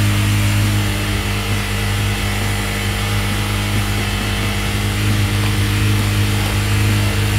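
Yamaha Bear Tracker 250 quad's single-cylinder four-stroke engine idling steadily, running on its freshly rebuilt carburettor.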